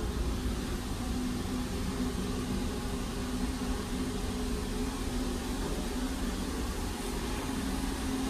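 Steady drone of a ferry under way, heard inside the ship: engine hum and ventilation, with a couple of held tones under an even hiss.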